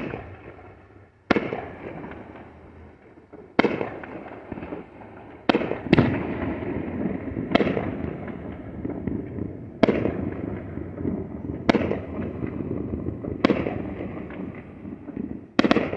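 Aerial firework shells bursting one after another, about ten loud bangs spaced one to two seconds apart, each trailing off in a long rolling echo.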